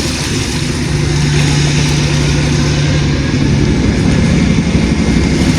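An engine running steadily, its hum stepping up slightly in pitch about halfway through, over wind rumble on the microphone.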